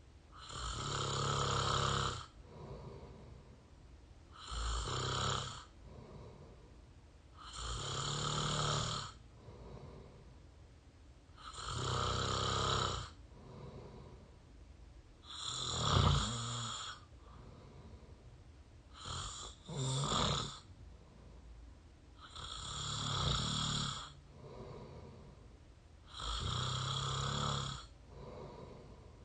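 A person snoring through an open mouth, close to the microphone: a rough snore about every three and a half to four seconds, each lasting a second or so, with a pair of shorter snores in quick succession a little past the middle.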